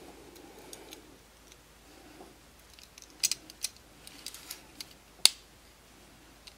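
Small clicks and taps of a die-cast toy car's metal base and body being fitted and pressed together by hand, scattered through the second half, with one sharp click a little past five seconds in.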